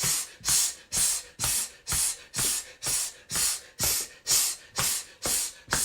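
A person breathing out in short, forceful hisses, about two a second, as a qigong lung-purging breath, with a low thump of stamping feet at the start of each one.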